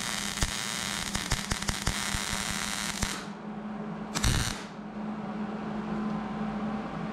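MIG welder arc crackling while welding a steel bracket. It stops about three seconds in, comes back for a brief second tack about a second later, and then a steady low hum remains.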